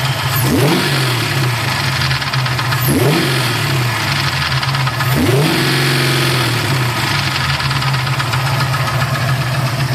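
Ford 347 stroker small-block V8 idling, its throttle blipped three times so the revs climb and fall back to idle, with a tapping from the top end that the owner thinks is a lifter.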